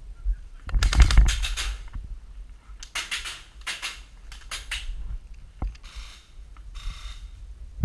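Airsoft guns firing in a few short rapid bursts, then a single shot, with low wind rumble on the microphone.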